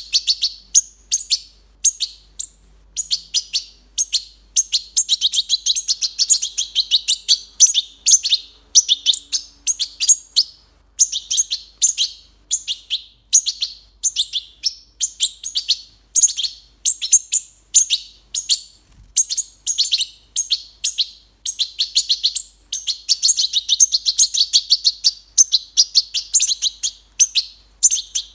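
Several fledgling European goldfinches giving rapid, high-pitched begging chirps in quick runs while being hand-fed.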